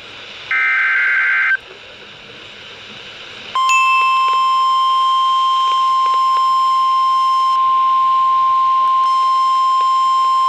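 Emergency Alert System SAME header data burst, a harsh screech about a second long starting about half a second in. After a two-second pause a single steady alarm tone starts and holds: the NOAA Weather Radio warning alert tone that announces a new warning.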